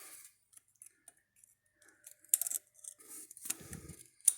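Scattered light clicks and clinks of hand tools and metal parts being handled, with a few dull knocks a little past the middle and one sharp click near the end.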